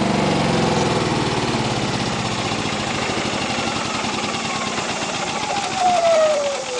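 Yamaha generator engine running down after a remote shut-off command, its pitch falling steadily over several seconds.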